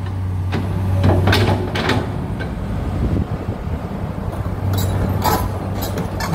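Komatsu PC200-8 hydraulic excavator's six-cylinder diesel engine running at a steady low hum. Several short sharp knocks sound over it, a few in the first two seconds and more near the end.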